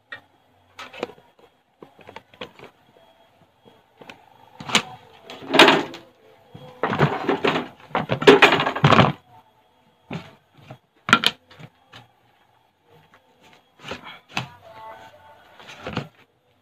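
Knife cutting into a whole young jackfruit held over a plastic basin: irregular short knocks and a few longer sawing cuts, loudest about halfway through.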